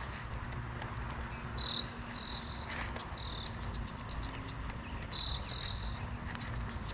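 Insects and birds chirping in pondside ambience: a few short high chirping phrases stand out over many faint ticks and a low rumble.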